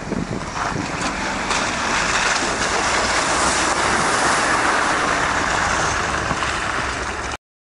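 Ineos Grenadier off-road vehicle running through a muddy, water-filled track, its tyres churning and splashing water over the engine noise as a steady rushing sound that cuts off suddenly near the end.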